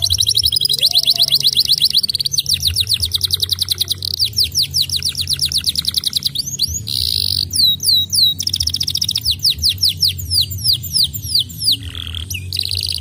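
Domestic canary singing a long, continuous song of fast rolling trills. Each run of rapidly repeated high notes gives way to another every second or two: a very fast trill, then slower falling sweeps and a short buzzy phrase. A low steady hum runs underneath.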